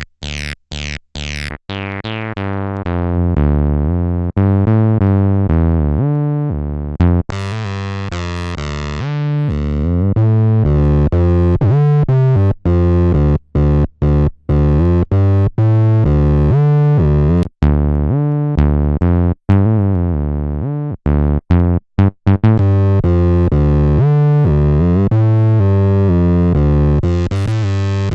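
Behringer TD-3 analog bass synth playing a sequenced acid bassline of short, gapped notes. Its resonant filter cutoff sweeps open and closed: bright at first, darkening over the first few seconds, then opening again about eight seconds in and once more near the end.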